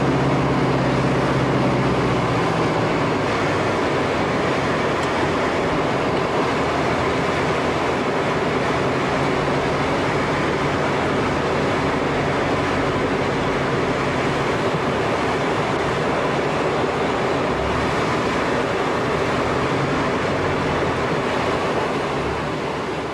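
Light aircraft engine and propeller droning steadily, heard from inside the cabin, with a low hum standing out for the first couple of seconds.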